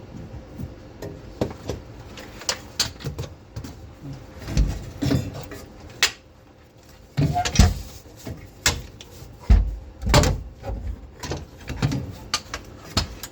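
Irregular clicks, knocks and clunks of gear and parts being handled, with a few heavier thumps about four and a half, seven and a half and ten seconds in.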